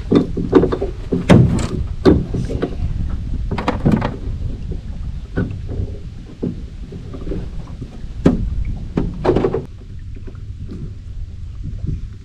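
Irregular knocks and splashes from handling gear in a small fishing boat on the water, over a steady low rumble of wind on the microphone; the knocks die down about ten seconds in.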